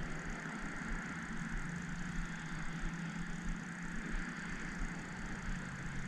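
Wind buffeting the microphone in uneven low gusts, over a steady low hum and hiss.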